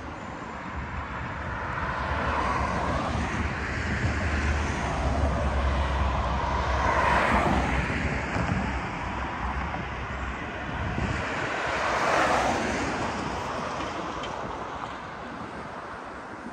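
Street traffic: a steady low rumble, with vehicles passing by; the two loudest pass about seven and about twelve seconds in.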